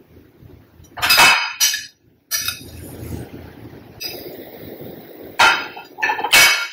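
A kitchen utensil scraping and clinking against a pan in several sharp strokes, with quieter rustling between them, as stir-fried vegetables are scooped out.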